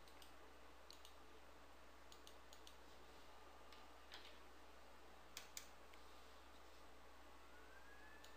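Near silence with several faint computer mouse clicks scattered through it, two slightly louder ones about five and a half seconds in.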